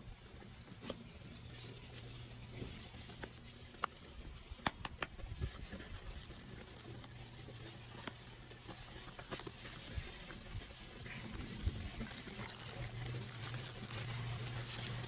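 Handling of a product box and its packaging being opened: scattered light clicks, taps and rustling, over a low steady hum.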